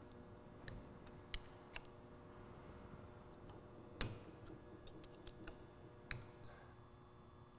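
Scattered light metallic clicks and ticks of a wrench working the breather plugs out of a Kimray back pressure regulator's upper housing. One louder clink comes about four seconds in.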